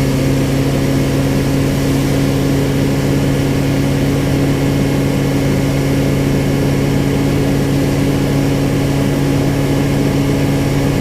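Baler running steadily: a constant, even drone with a low hum that does not change or break.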